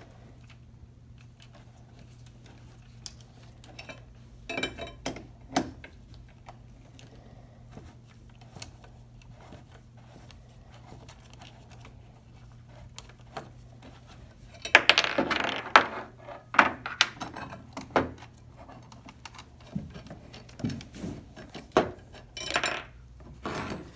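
Metal clicks, clinks and rattles of a ratcheting wrench and loose parts as a John Deere seed meter roller is taken apart, over a low steady hum. A burst of clattering about 15 seconds in is the loudest.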